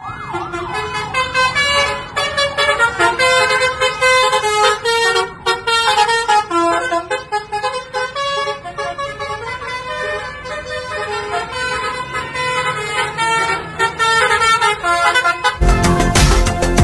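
Basuri telolet bus horns playing a quick melody, several pitched horn tones stepping from note to note. Loud background music cuts in about a second before the end.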